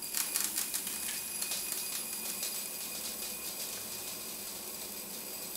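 Silica gel desiccant beads pouring from a metal can into a glass tumbler: a dense rattle of many small clicks at first, thinning out into a steady hiss of the beads streaming into the glass.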